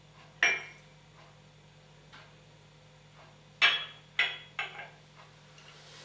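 Porcelain coffee cup clinking as it is set down: one sharp clink about half a second in, then a quick run of three or four clinks as the cup settles onto its porcelain saucer.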